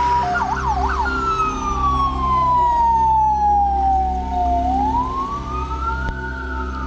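Ambulance siren: a quick yelp near the start, then a slow wail that falls for about four seconds, rises again and begins falling near the end. A steady low hum runs beneath it.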